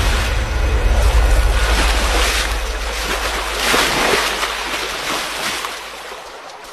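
Rushing river water, a loud steady wash that swells and ebbs every second or so and gradually fades near the end.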